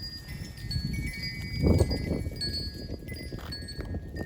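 Wind chimes ringing: scattered high, clear tones that come and go, over a low uneven rumble that swells about two seconds in.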